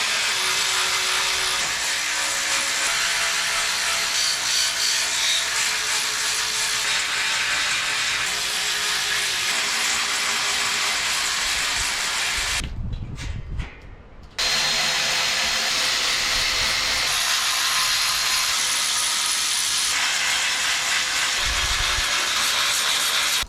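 A power tool running steadily, stopping abruptly for about two seconds near the middle, then running steadily again.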